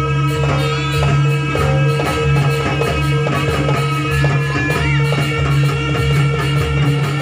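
Live Javanese traditional ensemble music with gongs and drums: drum strokes in an even rhythm over steady sustained tones.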